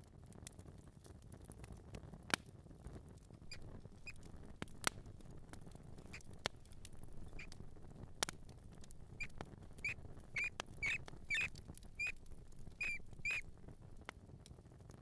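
Mouse squeaks: a run of short, high chirps, sparse at first and coming thick and fast in the second half, over scattered small clicks and scratches like tiny feet scurrying.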